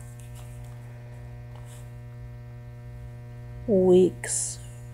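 Steady electrical mains hum with a ladder of overtones, and a woman's voice briefly about four seconds in.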